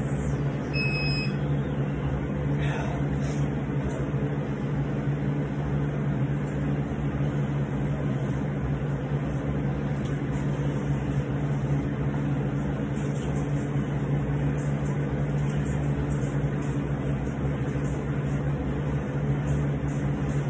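Steady low mechanical hum of a running motor or fan, unchanging throughout, with a short high beep about a second in.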